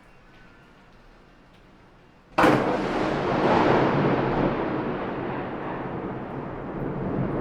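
Faint steady rain, then about two and a half seconds in a sudden sharp thunderclap that rolls on into a long rumble, slowly fading.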